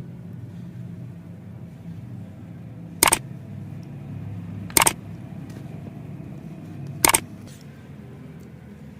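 Three sharp clacks, about two seconds apart, over a steady low hum.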